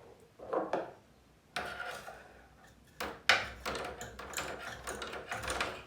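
ICP air conditioner running after its fan blade was adjusted, the fan now turning without grinding, mixed with knocks and rattles from handling the unit. A sharp knock about three seconds in is the loudest sound.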